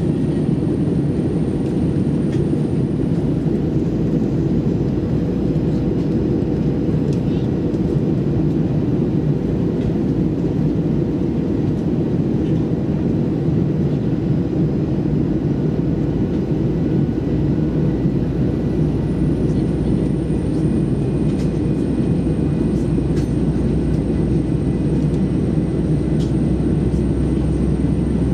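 Airbus A321-200 cabin noise in flight, heard from a window seat: a steady, dense low rush of the engines and airflow.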